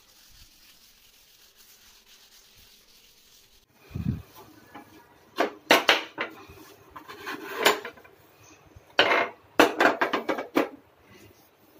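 Metal parts of a gas stove clinking and clattering as they are handled during cleaning. A low knock comes about four seconds in, followed by several clusters of sharp clinks.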